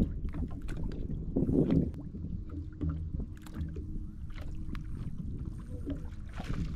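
Low rumbling noise of a fishing boat on the water, swelling briefly about a second and a half in, with scattered small clicks and knocks.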